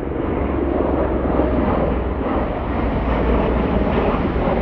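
Two large airplanes flying overhead: a steady engine roar that slowly grows louder and brighter as they approach.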